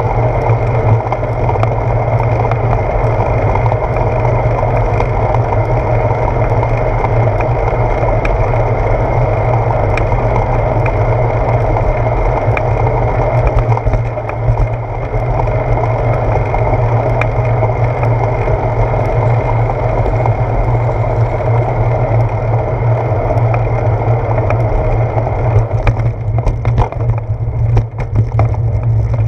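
Wind and road rumble picked up by a handlebar-mounted GoPro Hero 4 on a moving bicycle: a steady rushing noise with a low hum, with scattered knocks from bumps in the road. Near the end the rushing thins and the knocks come closer together as the bike slows among traffic.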